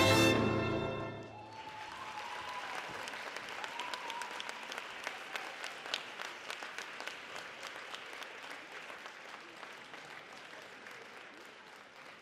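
Programme music ending on a held chord in the first second, then audience applause that slowly fades.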